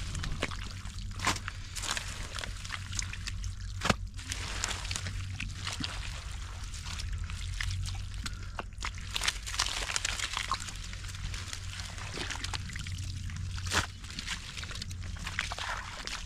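Shallow water sloshing and splashing, with many short sharp splashes and a louder one about four seconds in, over a steady low rumble.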